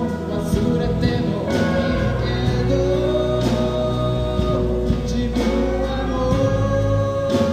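A band playing a song, with singing over drums and other instruments. Held notes run throughout, with a crash about every two seconds.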